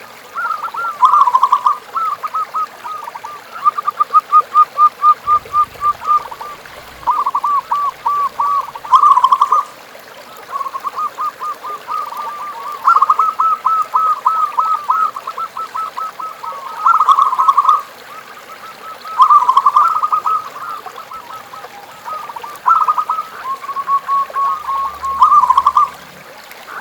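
Zebra dove (perkutut) cooing: phrase after phrase of rapid, short, bubbling notes, each phrase one to three seconds long, with brief pauses between them.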